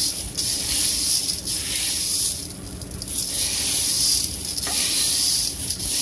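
Dry mixed pulses (black-eyed peas, kidney beans, mung and other seeds) rustling and hissing as a hand stirs them through a large aluminium pot, swelling with each sweep of the hand.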